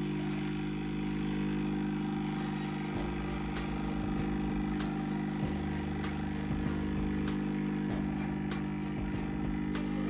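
Hot air rework gun blowing on a phone circuit board to loosen the micro-USB charging port: a steady fan hum, with a few light clicks.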